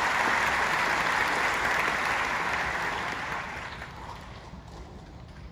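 Theatre audience applauding, the applause dying away after about three seconds.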